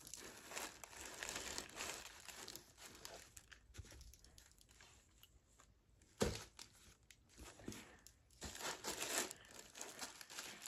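Quiet rustling and crinkling of tissue paper as the bag is handled in its wrapping, with one short, sharper thump about six seconds in.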